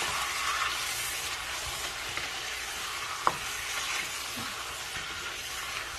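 Chicken pieces sizzling as they fry in hot oil in a pot, stirred and turned over with a wooden spatula. A single sharp knock sounds about three seconds in.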